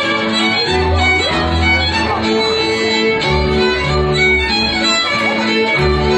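Hungarian folk dance music played on fiddle over a low bass part.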